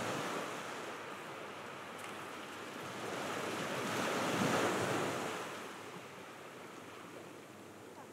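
Small waves breaking and washing up on a sandy beach: the surf swells just after the start and again, louder, around four to five seconds in, then eases to a softer wash.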